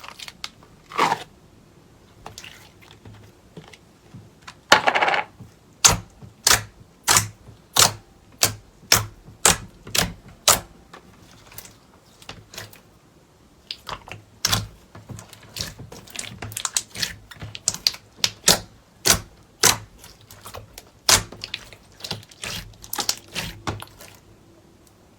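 Slime worked by hand, giving a run of sharp sticky clicks and pops, about two a second, with a brief lull in the middle.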